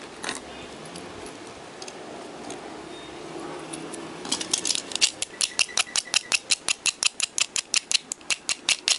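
Low background noise, then about four seconds in a fast, even train of sharp mechanical clicks begins, about five a second.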